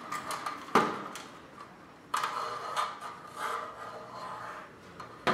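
Handling noise from a fluorescent batten fitting held against a plasterboard ceiling: the fitting scrapes and rubs as the supply cable is pulled through its back. There is a sharp knock about a second in and another near the end.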